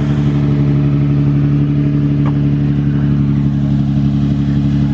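Nissan VQ-series V6 car engine idling steadily, loud and close, with an even, unchanging note.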